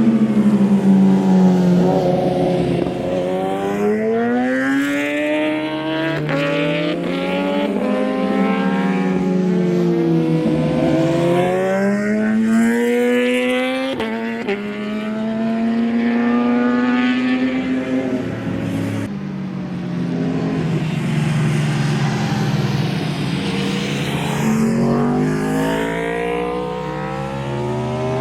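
Several sport motorcycles, superbikes among them, running past one after another with overlapping engine notes that repeatedly fall and rise as they shift through the gears.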